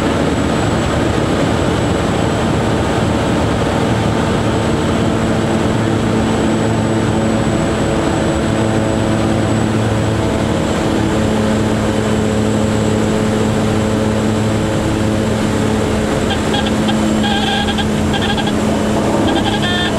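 Pilatus Porter's engine and propeller heard from inside the cockpit, running steadily through landing and rollout, with its note shifting partway through.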